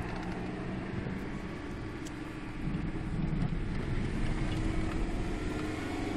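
Car driving on a paved road, heard from inside the cabin: steady engine and tyre noise that gets a little louder about halfway through.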